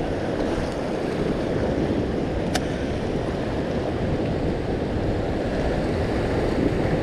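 Sea waves washing and surging with wind on the microphone, a steady low rush. A single sharp click comes about two and a half seconds in.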